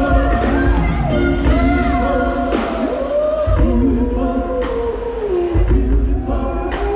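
Choir singing with a live band, the voices over drums, bass guitar and keyboards.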